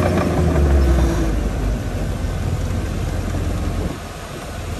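Heavy earthmoving machine's diesel engine running, loudest at first and easing off after about a second, then dropping a little more near the end.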